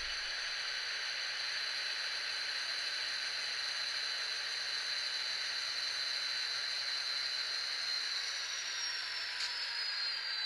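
HO-scale model diesel locomotives running along the layout track, with a steady hiss and a high thin whine. The whine drops in pitch over the last couple of seconds as the train slows to a stop.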